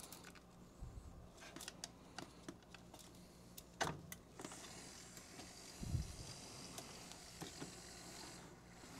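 Light plastic clicks and knocks as a filament spool is handled and seated on a Bambu Lab AMS lite, with one sharp click a little before the middle. Then a small motor whirs steadily for about four seconds, the AMS lite feeding the filament in, and stops near the end.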